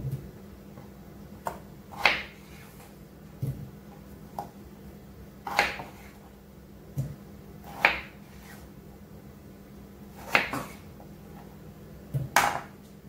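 Kitchen knife cutting raw potatoes on a wooden chopping board: a slice and a knock of the blade on the board every second or two, about ten in all.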